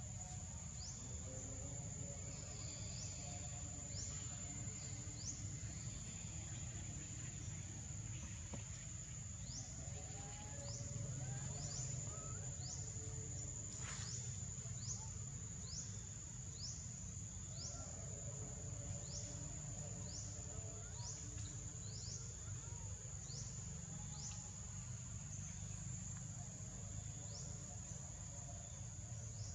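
Forest insects droning in a steady high-pitched tone, with frequent short chirps that slide down in pitch, over a low rumble.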